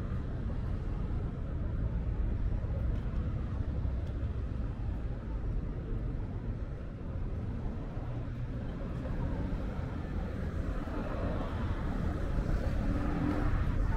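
City street traffic: a steady low rumble of cars running past, with no single event standing out.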